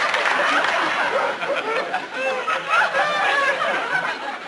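Studio audience laughing, with a few single voices standing out in the middle, dying down toward the end.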